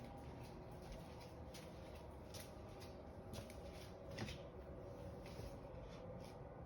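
Faint scattered light clicks and rustles over a low steady hum, the loudest click about four seconds in.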